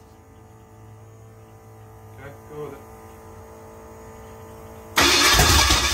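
A steady electrical hum, then about five seconds in a Ford 351M V8 cranks over on its starter in a loud burst of a little over a second during a start attempt on the freshly rebuilt engine.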